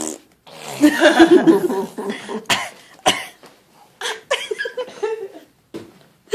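A baby girl fake-coughing: a long, gruff cough about a second in, followed by a string of short coughing bursts. The coughs are put on in imitation, not from illness, and have a deep, gravelly sound like a trucker's.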